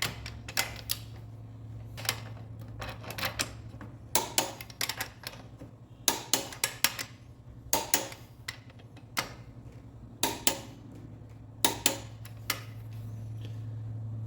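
Ratchet torque wrench clicking in short quick runs as it tightens the cylinder head nuts of a Honda Titan 2000 engine a little at a time, over a steady low hum.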